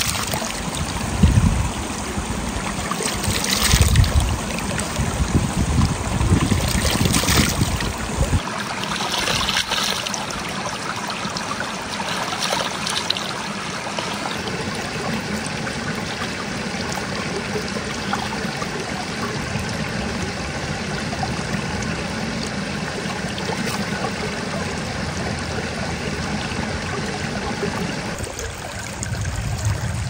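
Shallow spring-fed stream trickling over stones, a steady rush of running water, with a few brief louder bumps in the first eight seconds.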